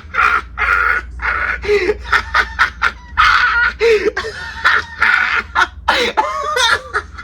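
A man's voice in a loud, strained puppet-character register, with laughing and shrieking sounds instead of clear words.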